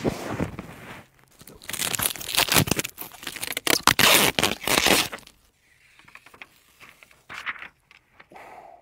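Thin disposable plastic protective covers being pulled off and crumpled inside a car cabin: crinkling and tearing in loud bursts, heaviest in the middle, then a few smaller crackles near the end.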